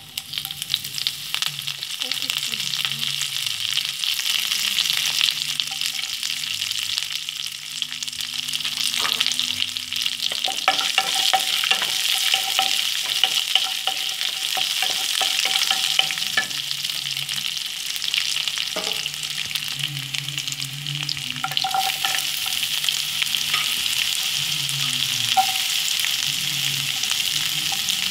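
Hot oil in a kadai sizzling loudly as fresh curry leaves are dropped into a tempering of mustard seeds and lentils, bursting into a dense hiss at once. The frying carries on while a wooden spoon stirs the pan, with quick clicks and taps from the spoon and spitting oil around the middle.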